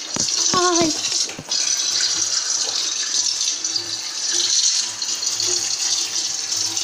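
Kitchen tap running a steady stream of water into the sink. A short wavering "ay" from a voice comes under a second in.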